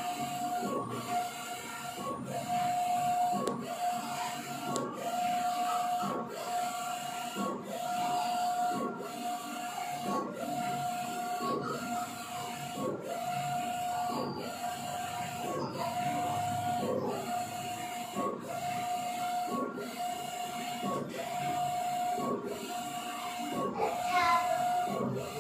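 Large-format tarpaulin printer running, its print-head carriage sweeping back and forth with a steady-pitched whine that repeats about once a second. A short rising squeak comes near the end.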